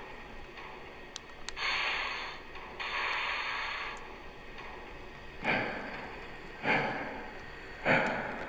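Lionel Legacy steam locomotive's onboard sound system as the engine starts to move: two long hisses, then slow exhaust chuffs about a second apart, three of them.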